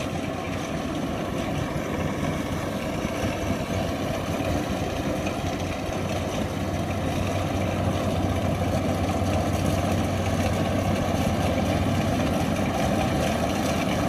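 Kubota DC60 combine harvester's diesel engine running steadily as the machine cuts flattened rice. It is a continuous hum that grows slightly louder in the second half.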